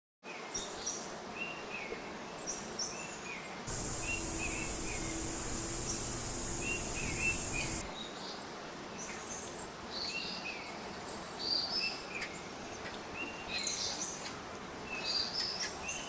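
Small birds chirping and singing in short repeated phrases over a steady background hiss. From about four seconds in, a louder even rushing noise with a low hum joins, then cuts off abruptly about four seconds later.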